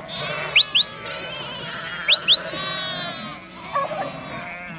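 Lambs and ewes bleating, with two quick pairs of sharp rising whistles, about half a second and two seconds in.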